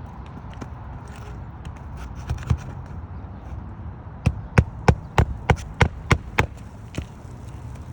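A quick run of about eight sharp knocks, roughly three a second, starting about halfway through, with a couple of fainter knocks before it and one more shortly after.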